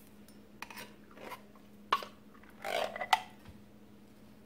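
Metal spoon clicking against a can of condensed cream of chicken soup, and the thick soup dropping with a short wet squelch into a stainless steel bowl of liquid about three seconds in.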